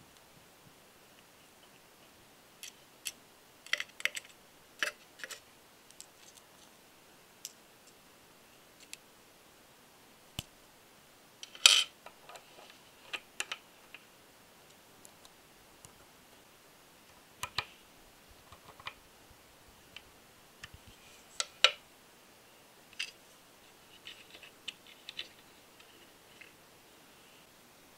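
Small metal parts of an all-metal radial engine model kit clicking and tapping as the cylinder head's valve springs, caps and rocker arm are fitted by hand. The clicks come irregularly, a few at a time, with the sharpest about 12 seconds and 22 seconds in.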